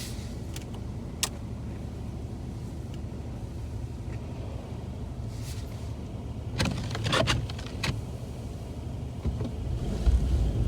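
Steady low engine and road hum heard from inside a car's cabin, with a few sharp clicks and a short burst of rattling about two-thirds through, and the low rumble growing louder near the end.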